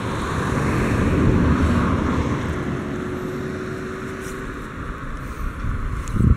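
A car passing on a road, its noise swelling to a peak about a second and a half in and then slowly fading, with a few low thumps near the end.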